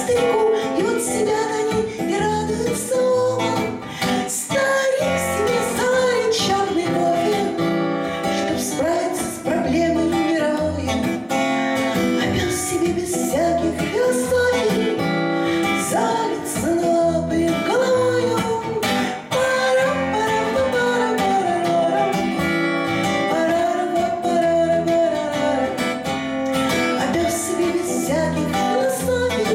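A woman singing a Russian bard song to acoustic guitar accompaniment.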